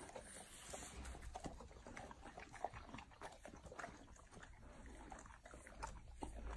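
Golden retrievers chewing and licking fresh pineapple flesh: a quiet, irregular run of small crunching and lapping clicks.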